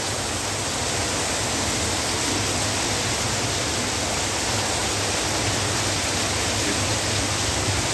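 Very heavy monsoon rain pouring down: a steady, loud, even rushing hiss.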